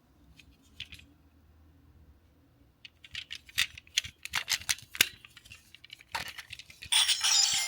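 Decade Lockseed toy handled: a run of sharp plastic clicks and rattles, a few faint ones first, then many in quick succession. About seven seconds in, a loud hissing electronic sound starts.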